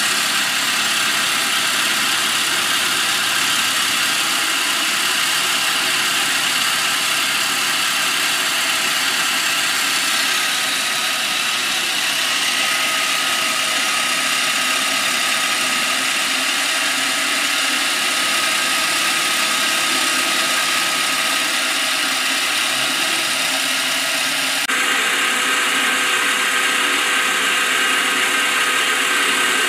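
CNC milling machine running a light finishing profile pass on an aluminium billet part: a steady spindle whine with end-mill cutting noise. The tone changes abruptly about 25 seconds in.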